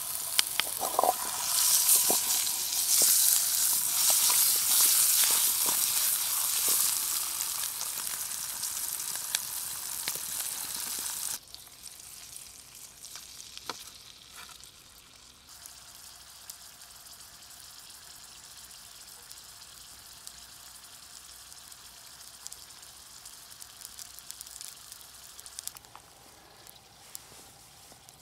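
Potatoes frying in a pan over a campfire, sizzling loudly, with a few sharp clicks of stirring in the first couple of seconds. About eleven seconds in the sizzle drops abruptly to a much quieter hiss with occasional clicks.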